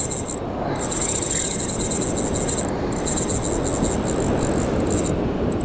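Shimano Saragosa 10000 spinning reel's drag screaming in a fast, high-pitched buzz as a hooked blacktip shark strips line off the spool, almost down to the end of the line; the buzz breaks off briefly a few times. A steady rush of wind and surf runs underneath.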